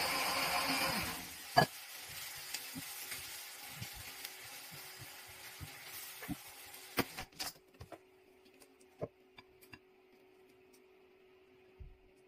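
Fish pieces sizzling in sauce in a small electric pot. The sizzle is loud at first and dies away after about a second. Then come scattered sharp clicks of chopsticks against the pot as the pieces are lifted out, with a faint steady hum underneath.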